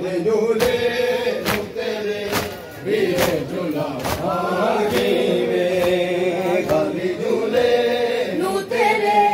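A crowd of men chanting a Punjabi noha (Muharram lament) in unison, with the sharp slaps of matam, open hands striking bare chests, falling in a steady beat about once a second.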